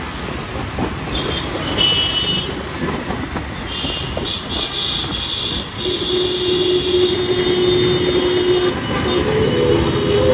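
Road traffic with vehicle horns sounding: short high horn toots about two seconds in and again from about four seconds, and a long, steady lower horn blast from about six to nine seconds in.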